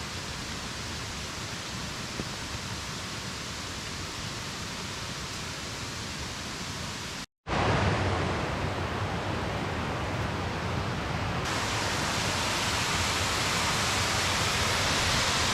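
Steady rushing of cascading water in a mountain valley stream. About seven seconds in it cuts off briefly and comes back louder.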